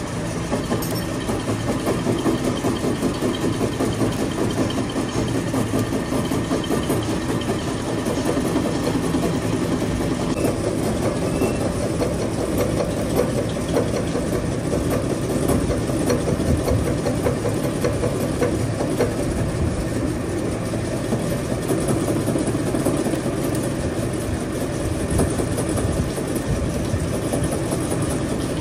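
A machine running steadily, a continuous rumble with no separate strokes, starts or stops.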